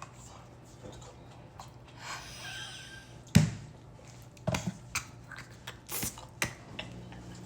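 Kitchen items being handled during drink-making: scattered light clicks and knocks, a brief soft hiss about two to three seconds in, and one louder knock about three and a half seconds in.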